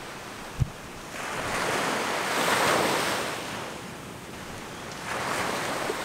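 Heavy surf breaking on the reef, a rushing wash that swells and fades twice, with wind on the microphone and one brief low thump about half a second in.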